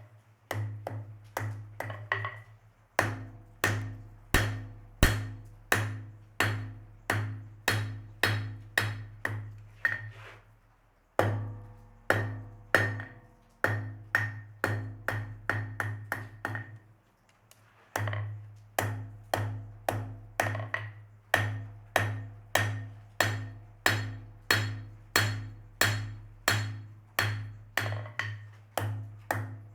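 Blacksmith's hammer striking steel on an anvil at about two blows a second, each blow ringing. The hammering comes in three runs with brief pauses about a third of the way in and just past halfway.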